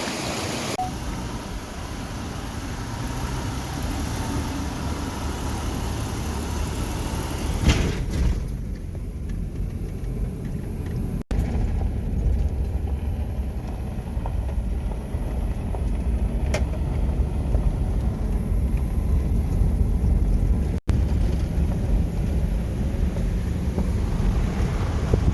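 Vehicle driving: a steady low rumble of road and engine noise, broken twice by abrupt cuts.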